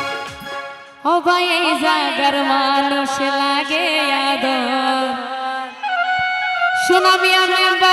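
Bengali regional folk song played live: a woman singing a long, wavering melodic line over keyboard, with tabla strokes at the start and again near the end.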